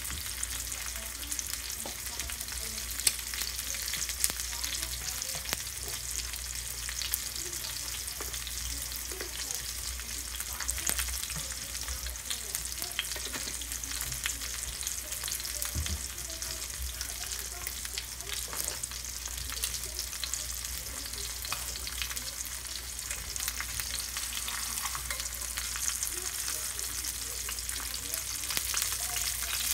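Ribeye steak searing in hot oil in a cast iron skillet: a steady sizzle with small pops and crackles throughout, over a low steady hum. The steak is still cooking on its first side, not yet released from the pan.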